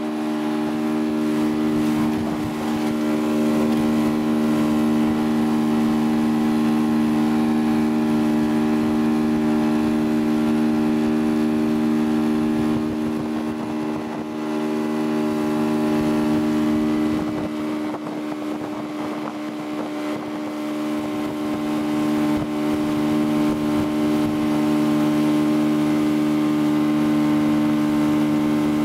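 Motorboat engine running at a steady towing speed, a constant drone that holds one pitch, with water rushing in the wake.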